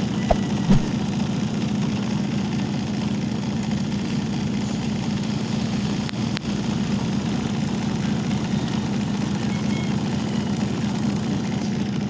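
Mini portable washing machine's small electric motor running steadily, turning the wash pulley by a rubber belt, with a steady hum. A single short click a little past halfway.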